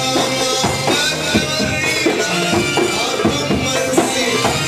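Live band playing belly-dance music, with melodic instruments over a steady drum beat of about three strokes a second.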